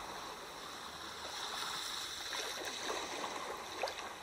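Steady flowing-water ambience, with a few small gurgles and trickles.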